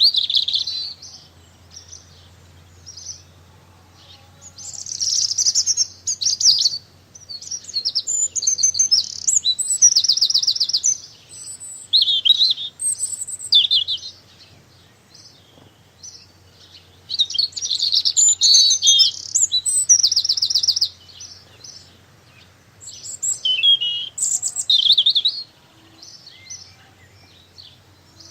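Small songbirds chirping and twittering in quick high-pitched runs, coming in spells of a few seconds with short quieter gaps between them.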